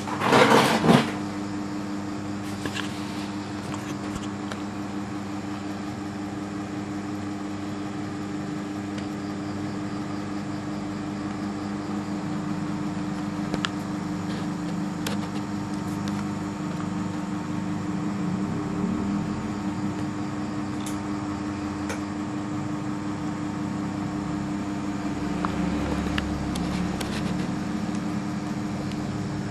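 Steady mechanical hum of a running machine or fan, with a brief loud burst in the first second and a few faint clicks later on.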